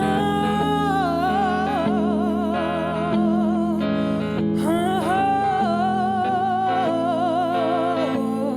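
Soul song played live: a woman's voice sings two long held notes with vibrato, without clear words, over guitar accompaniment.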